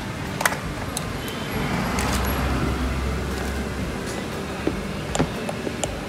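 A motor tricycle passing on the road, its engine running as a steady low rumble that swells around the middle and eases off. A few sharp clicks sound over it.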